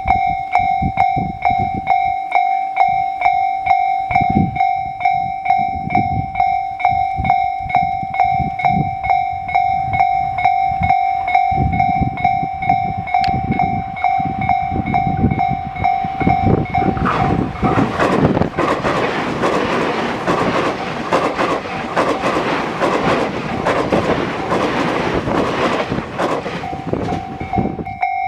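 Japanese level-crossing warning bell ringing in a fast, even repeating clang. About 17 seconds in, an electric commuter train passes over the crossing and its running noise covers the bell for about ten seconds. Near the end the bell is heard alone again.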